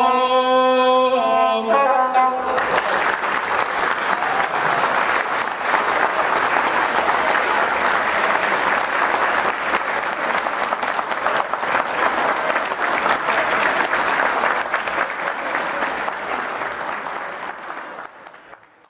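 Singing with the gusle, the single-string bowed folk fiddle, stops about two seconds in. A crowd then applauds steadily, and the applause fades out near the end.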